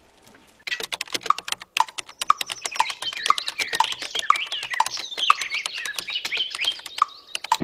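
Fast typing on a computer keyboard, a rapid run of clicks starting about a second in, with birds chirping alongside.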